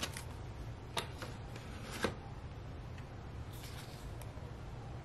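Faint handling of a zippered binder wallet and its clear plastic cash envelopes: a few light taps and rustles.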